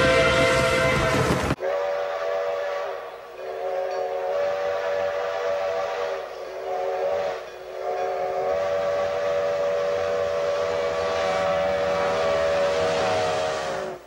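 A loud held yell of several voices cuts off about a second and a half in, giving way to a steam locomotive's chime whistle sounding a chord of several tones. The whistle blows four blasts, the last held for about six seconds, over the faint noise of the passing train.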